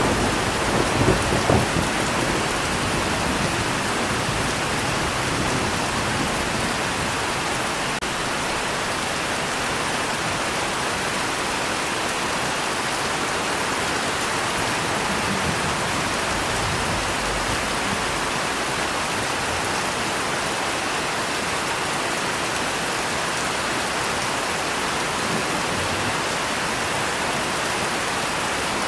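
Steady rain falling, an even hiss of water. A thunder rumble carries over at the start and dies away about two seconds in, with faint low rumbles swelling now and then after.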